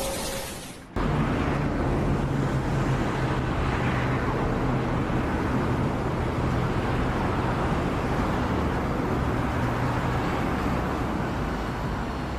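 A large engine running steadily at a constant speed, starting abruptly about a second in.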